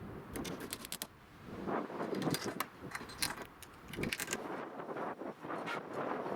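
Irregular sharp clinks and rattles, metal-like jangling, over short bursts of scraping or rustling noise.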